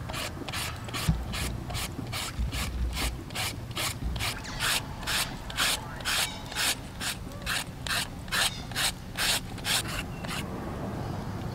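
Plastic-handled julienne peeler with a serrated blade shredding an unripe green fruit into strips: repeated rasping scrapes, about two to three strokes a second, that stop near the end.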